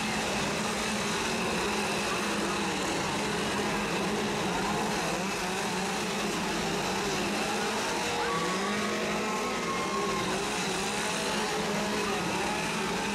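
Several gasoline chainsaws revving over and over, their engine pitches overlapping and rising and falling.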